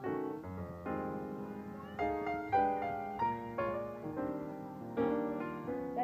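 Background piano music, notes struck one after another and fading.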